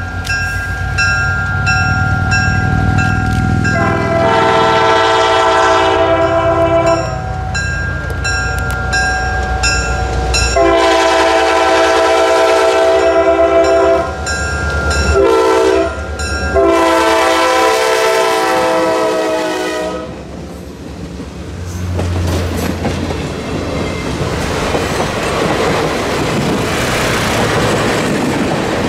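Diesel locomotive approaching with its engine rumbling and sounding a multi-note horn in the grade-crossing pattern: two long blasts, one short, and one long. It then passes, and the coaches roll by with a steady rush and the click of wheels over rail joints.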